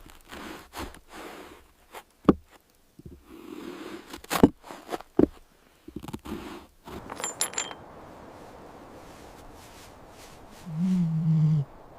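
A few sharp knocks and scrapes, then near the end a low pitched animal call lasting about a second.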